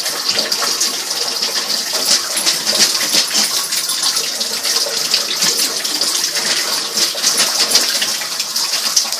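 Tap water running into a bathtub in a steady rush, broken by many short splashes as a dog's feet and muzzle move in the shallow water by the drain.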